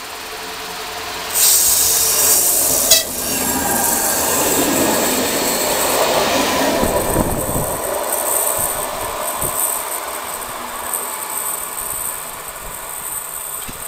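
A ČD class 854 diesel-hydraulic railcar and its trailer coach approach and pass close by. The train sounds its horn as a loud blast about a second in, then rumbles heavily past. As it runs away, its wheels clatter and squeal, fading toward the end.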